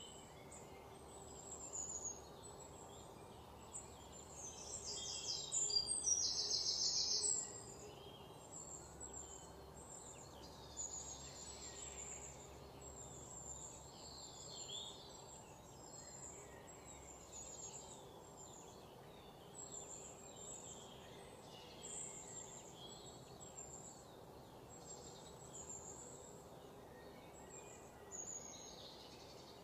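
Outdoor bird chorus: birds chirping in short, high notes again and again over faint background noise. A louder, rapid buzzing trill comes about five to seven seconds in.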